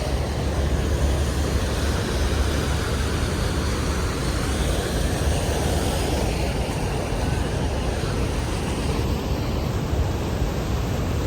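Niagara Falls' falling water rushing steadily: a dense, even noise with a deep low rumble underneath.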